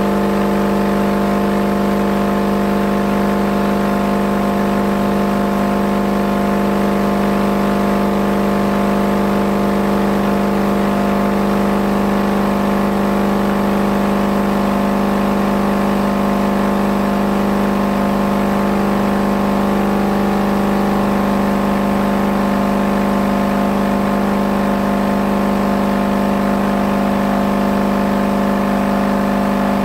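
Ural TT 10 car subwoofer driven with a steady test tone at about 1.27 kW, twice its rated 500 W, in an overload crash test. It gives a loud, unbroken, buzzy drone that does not change.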